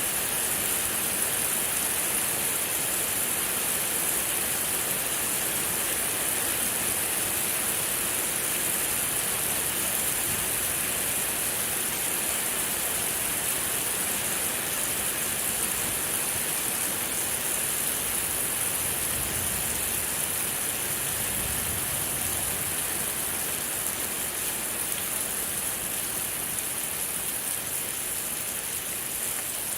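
Steady rain, a continuous even hiss with a strong high edge and no breaks.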